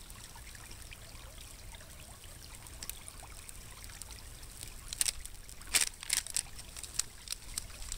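Shallow creek trickling steadily. From about five seconds in, a run of sharp crinkles as a plastic snack packet is handled.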